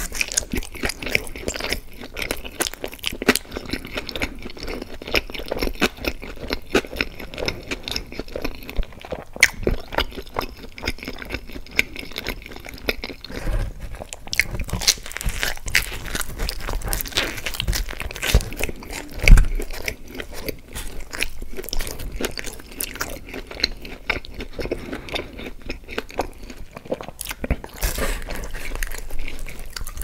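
Close-miked chewing and crunching of pizza and garlic breadsticks, with irregular crackly bites and wet mouth sounds, and one louder thump a little past the middle.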